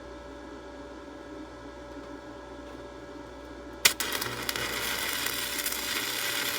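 A steady hum, then about four seconds in a sharp crack as a 6011 stick electrode strikes an arc, followed by the continuous loud crackle and sizzle of stick welding.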